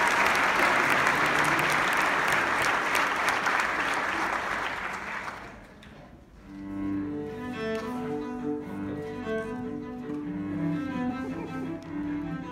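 Audience applause that dies away about five seconds in, then a trio of cello, violin and piano starts playing chamber music, the cello's low bowed notes most prominent.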